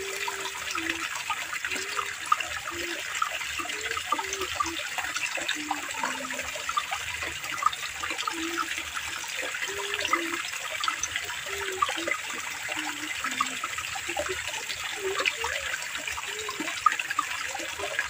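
Irrigation-channel water pouring into a pool, a steady splashing rush.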